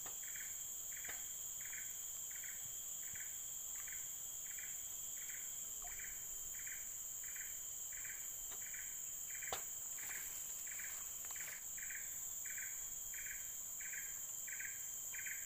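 Insects calling: a steady high-pitched buzz with a rhythmic chirp repeating about twice a second. A single sharp click sounds a little past halfway.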